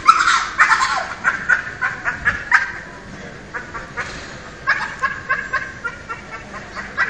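Dog making its weird noise: a fast run of short, high-pitched cries, several a second, stopping and starting again about halfway.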